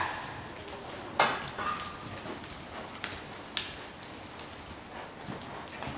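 Horses' hooves beating on the soft sand footing of an indoor riding arena, with one loud, short rushing burst about a second in and two sharp clicks later.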